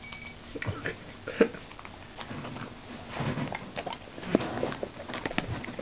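A small puppy eating treats offered by hand: scattered light chewing and clicking noises, with a couple of short pitched sounds.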